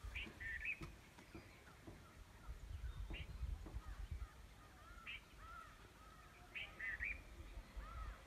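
Birds calling outdoors: short, scattered calls every second or two, among them faint caws, and soft chirps, over an uneven low rumble.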